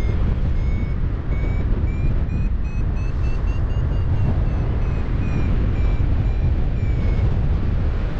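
Paragliding variometer beeping its climb tone over heavy wind rush on the microphone. The beeps rise in pitch and come faster toward the middle, then slow and drop in pitch and stop about seven seconds in: the climb strengthens and then fades away.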